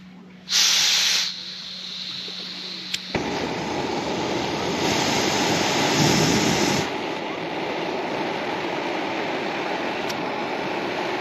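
Jetboil gas canister stove: gas hisses loudly as the valve is opened, the igniter clicks once about three seconds in, and the burner lights and keeps burning with a steady rushing sound that swells louder for a couple of seconds in the middle.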